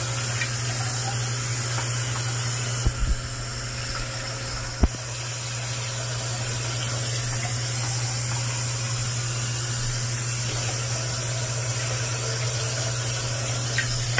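A steady rushing hiss over a low hum, with a few short knocks about three and five seconds in.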